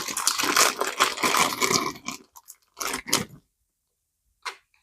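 Plastic bag crinkling and crunching as a bagged set of RC car tires is handled, in irregular bursts that stop a little after three seconds in.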